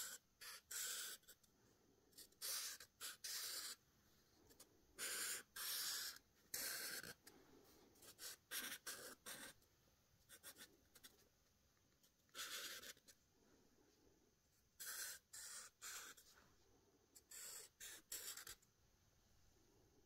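Sharpie chisel-tip permanent marker drawing on sketchbook paper: short strokes, some in quick runs of two or three, with pauses between them.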